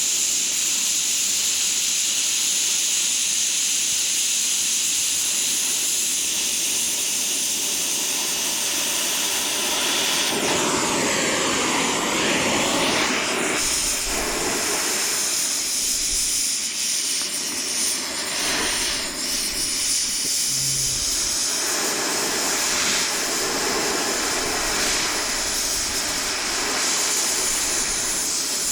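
Stick welding arc sizzling with a steady, hissing crackle as a weld is run.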